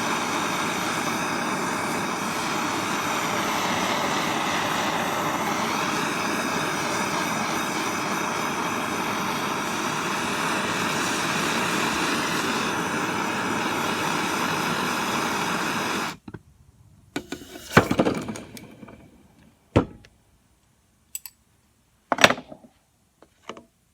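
Hand-held torch burning with a steady roaring hiss while heating an aluminium wheel cylinder to free its seized piston. It cuts off suddenly about two-thirds of the way in, followed by a few sharp clicks and knocks.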